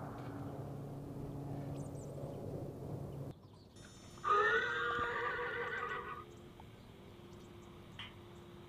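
A horse neighs once, a whinny of about two seconds, after a steady low hum.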